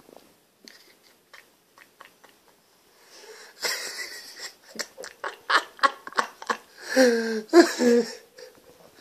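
Pug snoring and snorting: faint clicks for the first few seconds, then loud, noisy snuffling breaths from about three and a half seconds in, ending in two pitched, squealing snorts near the end.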